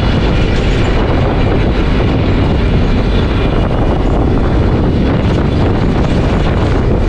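Moving bus heard from inside beside an open window: loud, steady engine and road noise with a deep low rumble.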